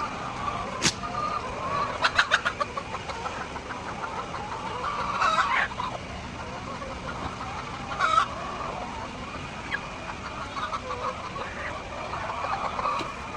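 Many hens clucking together in a steady chatter, with a few louder calls standing out. A sharp click comes about a second in and a quick run of clicks about two seconds in.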